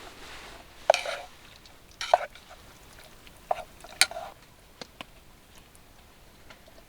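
Light clicks and knocks with three short scraping rustles, irregularly spaced, like small objects being handled close by.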